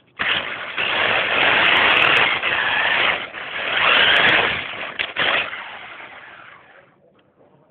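Small radio-controlled car driving fast with its onboard camera: a loud rush of motor, drivetrain and tyre noise that starts suddenly, swells twice, drops off about five seconds in and then fades away.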